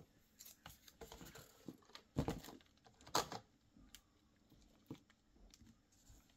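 Faint handling noises of a cable and plastic parts as a connector is tried in the skimmer pump: scattered soft clicks and rustles, with two louder rustles about two and three seconds in.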